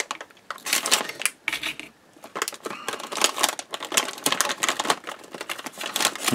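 Plastic packaging crinkling and rustling as hands handle an antistatic component bag: a dense run of irregular crackles and clicks, with brief lulls.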